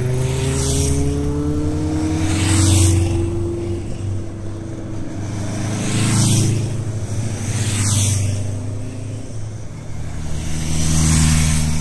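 Kawasaki Zephyr motorcycles riding past one after another, about five pass-bys, each engine note rising as it nears and dropping as it goes by, over a steady drone from the bikes following behind.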